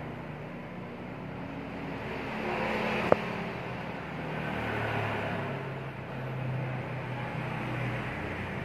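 Low hum of motor vehicle engines going by, swelling and fading twice, with one sharp click about three seconds in.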